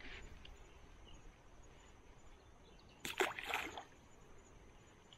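A splash about three seconds in, as small fish are let go from a keep net back into the stream, with water splattering for under a second.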